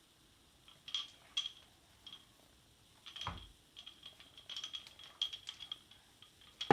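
Light plastic clicks, taps and rattles of a washing machine's door and contents being handled. There is a firmer knock about three seconds in and another at the very end.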